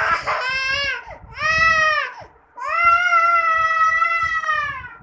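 A young child crying in three long, high wails, the last held for about two seconds, with a low rumble of phone handling underneath.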